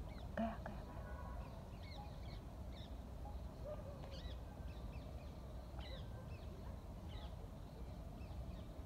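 Birds chirping and calling outdoors: scattered short high chirps throughout, with a louder, harsher call about half a second in, over a low steady background rumble.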